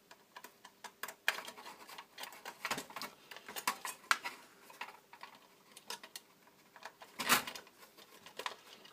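Small clicks, ticks and rattles of a screwdriver working screws out of a stereo's amplifier circuit board and of the board being handled, with a louder clatter about seven seconds in.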